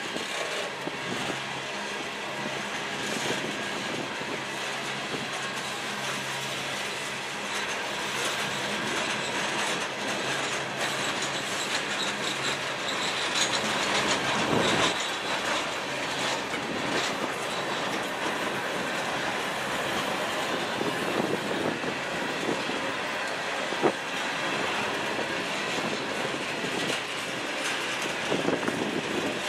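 Freight cars of a manifest train rolling past at trackside: steady rumble of steel wheels on rail, clacking over the joints. It grows louder around the middle, with one sharp metallic clank about three-quarters of the way through.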